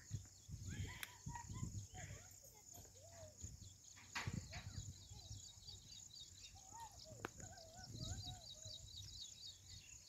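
Faint rural ambience: a steady high insect buzz, with soft, wavering murmured sounds now and then and a quick run of high chirps near the end.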